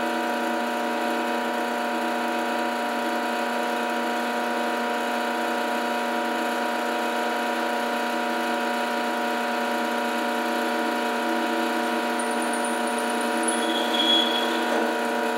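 Drill press motor running steadily with an even hum, while the bit drills a hole through a small piece of wood; a brief high squeal near the end.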